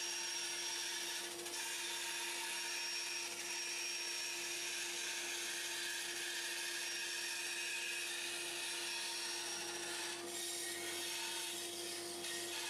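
Small hobby bandsaw with a 16-teeth-per-inch blade running and cutting 3 mm aluminium sheet: a steady hiss of the blade in the metal over a constant tone from the machine.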